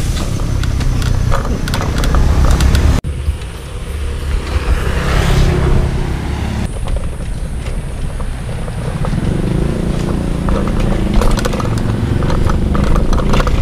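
Road traffic and wind rumbling on the microphone while riding, with a vehicle passing about five seconds in. The sound breaks off for an instant about three seconds in.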